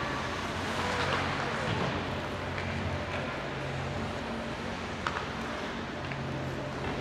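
Ice hockey rink ambience: faint scattered voices over a steady low hum, with one sharp knock about five seconds in.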